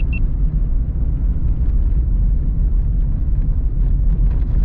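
Steady low rumble of a pickup truck driving on a snow-packed road, engine and tyre noise heard from inside the cab.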